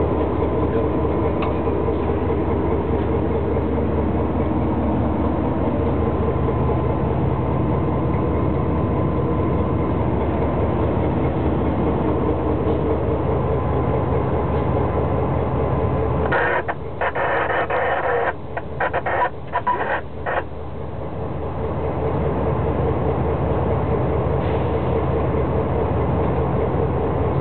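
Locomotive running, heard from inside its cab: a loud, steady engine drone with low tones as the train rolls through the yard. From about 16 to 20 seconds in, a noisy burst breaks up several times while the low drone dips.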